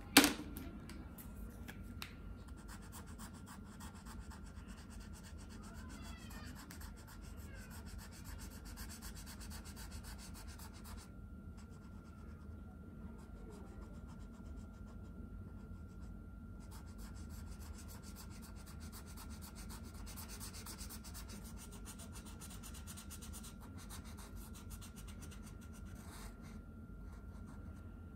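Paint marker tip rubbing and scratching across paper in stretches of strokes with short pauses. There is one sharp knock right at the start, over a steady low hum and a faint steady high tone.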